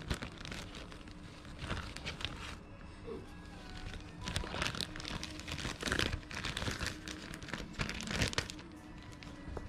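Thin plastic takeaway bag crinkling and rustling in irregular bursts as it is handled and pulled open, loudest in the second half.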